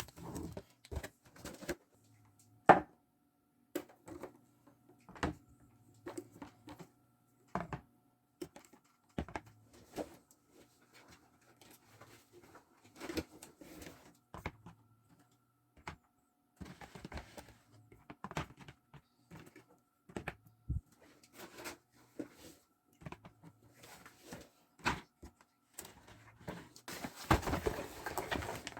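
Scattered knocks, taps and thunks of items being handled and set down while a mini fridge is stocked, one sharp knock about three seconds in standing out, with brief rustles of packaging. A faint steady hum sits underneath.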